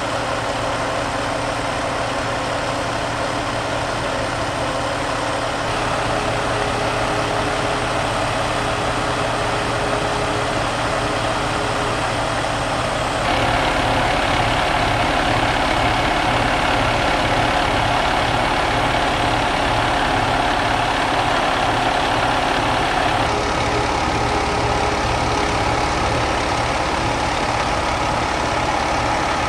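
Pierce Velocity fire engine's diesel engine idling steadily, heard up close beside the truck. The sound gets louder abruptly about halfway through and changes tone again near the end.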